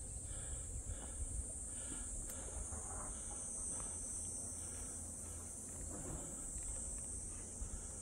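Insects shrilling in one steady, high-pitched drone, over a low rumble.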